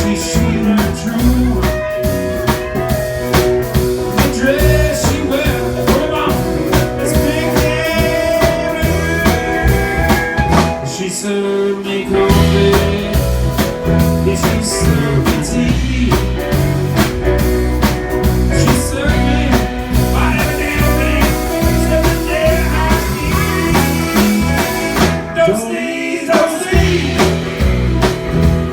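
A rock band playing, with drums, bass, electric guitar and singing. The bass and drums drop out briefly about eleven seconds in and again near the end.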